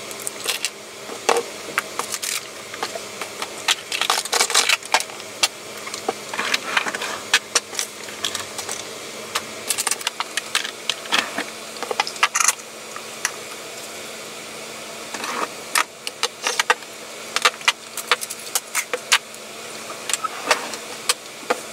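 Plastic makeup compacts, jars and tubes clicking and clattering as they are picked up, handled and set down on a vanity top. The light knocks come irregularly, sometimes in quick flurries.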